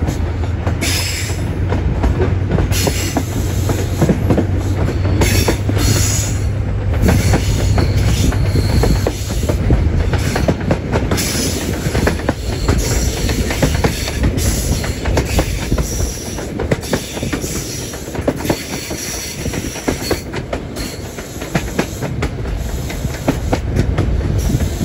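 A Class 43 High Speed Train on the move, heard from an open window of one of its coaches: a steady rumble of wheels on rail with frequent irregular clicks over the track. A low drone fades after about nine seconds, and short high wheel squeals come and go in the second half as the train takes a curve.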